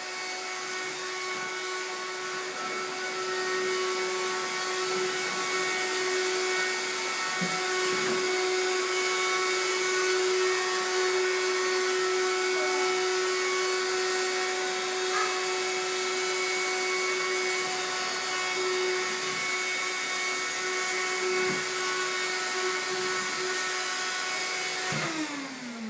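Vacuum cleaner motor running with a steady hum and hiss, then winding down with a falling pitch near the end as it switches off after bumping into a chair.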